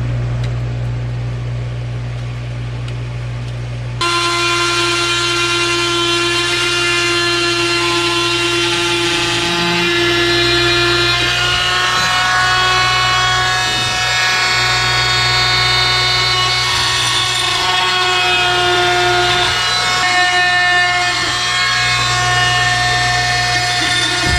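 Power tool running under load, with a steady whine whose pitch drifts a little. For the first few seconds only a low hum is heard, then the sound changes abruptly about four seconds in.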